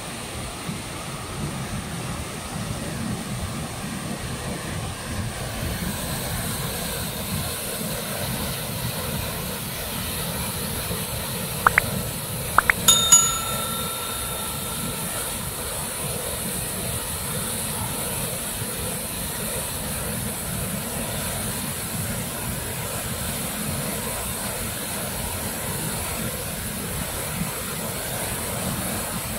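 River water rushing steadily over a low weir. Just under halfway through, two sharp clicks are followed by a short ringing chime, a subscribe-reminder sound effect.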